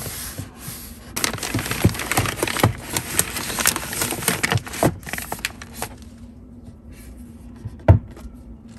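Papers and storage items being handled and slid onto a cabinet shelf: dense rustling with many small knocks for a few seconds, then quieter, with one sharp knock near the end.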